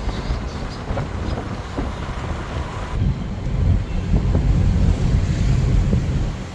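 Wind buffeting the microphone as a low, uneven rumble, heavier from about three seconds in.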